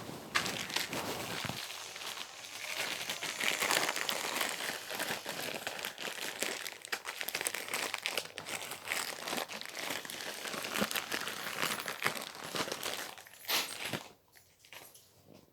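Continuous crinkling and crumpling, a dense crackle of small clicks, that dies away about a second before the end.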